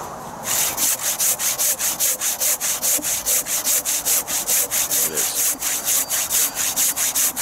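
Hand saw cutting through a log with fast, even back-and-forth strokes, about five a second, starting about half a second in.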